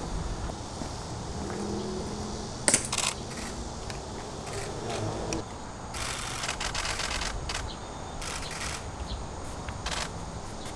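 Press camera shutters clicking in bursts: a sharp loud click about three seconds in, a dense rapid run of clicks around six to seven seconds, and a few single clicks after.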